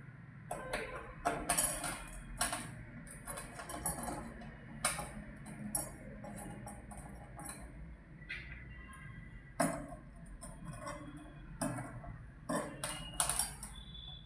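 Irregular sharp metallic clicks and clinks as the four screws are fitted and driven with a screwdriver to fix a monitor onto the stand arm's steel VESA mounting plate.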